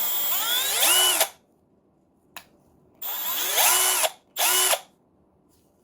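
Milwaukee M12 Fuel brushless right-angle impact wrench spinning freely with no load on speed setting three, run three times on the trigger: each time the motor whine rises as it spins up, holds, then winds down, the last run short. A single sharp click falls between the first and second runs.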